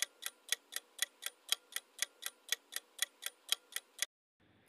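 Clock-ticking sound effect of a quiz countdown timer, even sharp ticks about four a second, stopping abruptly about four seconds in.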